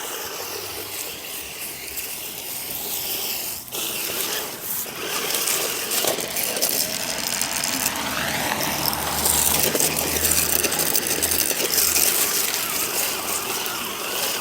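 Small off-road RC car driving and doing tricks on the sidewalk, its electric motor and gears whirring with a steady clicking rattle.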